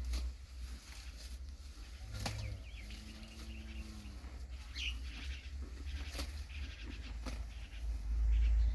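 Farm animal calls: a low, drawn-out call lasting about a second, starting about three seconds in, and a single short high chirp near five seconds. Under them run a steady low rumble and scattered clicks.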